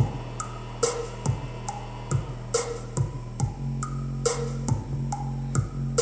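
Music played through a homemade Bluetooth speaker built into a DeWalt toolbox: deep sustained bass notes under a regular drum beat. The box plays it without rattling, its lid sealed airtight.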